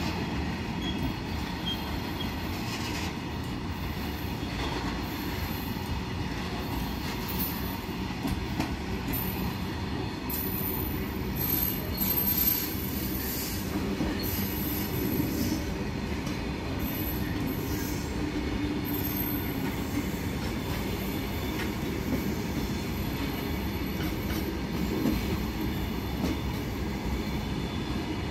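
A freight train's wagons rolling steadily past, with a rumble and short high-pitched wheel squeals now and then, most of them in the middle.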